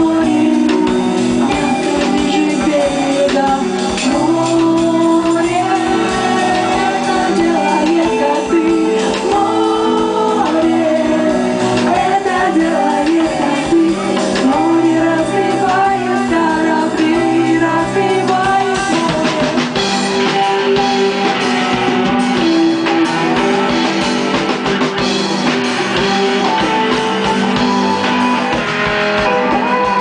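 Live rock band playing a song: a female lead vocal over electric guitar, bass guitar and drum kit.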